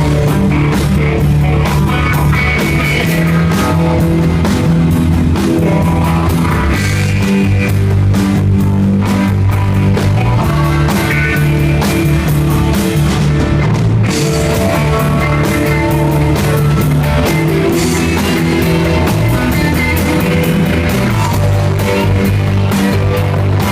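Live rock band playing loudly, with a bass line, electric guitar and a drum kit keeping a steady beat.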